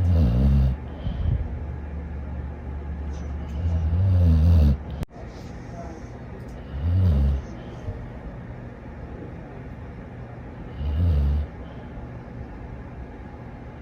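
Dog snoring in a slow, even rhythm: four low snores about three to four seconds apart.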